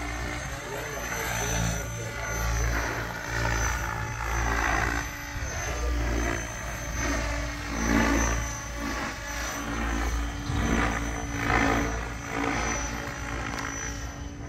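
SAB Raw Piuma 700 electric RC helicopter in flight, on a 12s setup with a Scorpion 4035-560KV motor: a continuous rotor whoosh and motor whine. It swells and fades several times as the helicopter passes back and forth.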